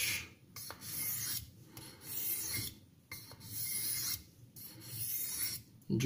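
The 12C27 stainless blade of a French Thiers folding pocket knife is stroked across an oiled Washita stone, a natural Arkansas stone, giving a scratchy hiss on each pass. There are about five strokes, each close to a second long, with short pauses between. This is sharpening at the first angle to thin the steel behind the edge.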